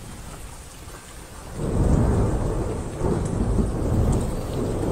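Rain falling steadily, then thunder breaking in about a second and a half in and rumbling on loudly, swelling again twice.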